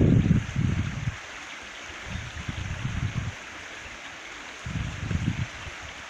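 Shallow stream babbling and trickling over stones, with low rumbling swells at the start, in the middle and near the end.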